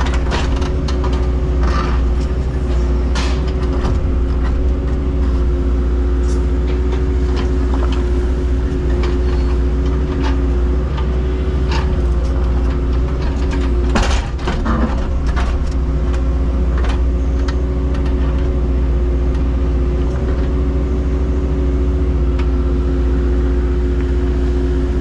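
Heavy construction machine's diesel engine running steadily, with scattered metallic clanks and knocks over it and a sharper knock about halfway through.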